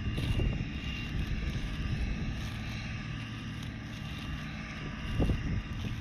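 Steady machine hum with a faint high whine, under wind gusting on the microphone that swells about five seconds in.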